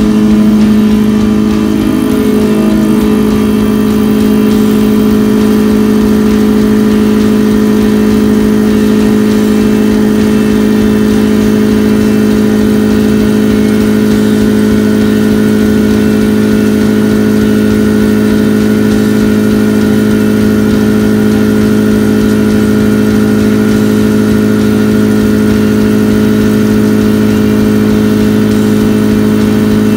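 Walter indexable 45° chamfer milling cutter with tangential LNHU inserts cutting along a metal workpiece on a horizontal milling machine's spindle. It makes a loud, steady machining hum at one fixed pitch, which settles within the first couple of seconds and then holds through a continuous cut.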